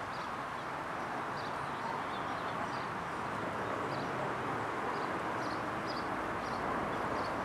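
Steady outdoor background noise, an even hiss-like hum, with faint short high chirps every second or so.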